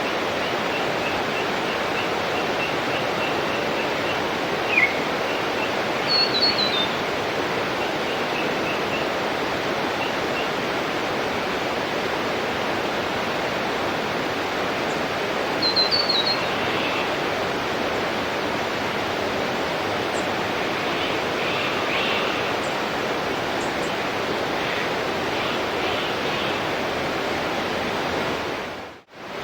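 Steady rushing of a waterfall, with birds chirping over it: a run of quick high notes through the first ten seconds and a short twittering call twice. The water sound fades out and comes straight back in just before the end.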